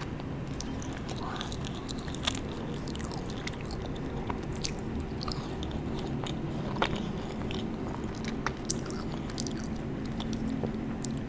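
Close-miked chewing of a crunchy candy, with scattered sharp crunches and wet mouth clicks, the loudest about seven and nine seconds in.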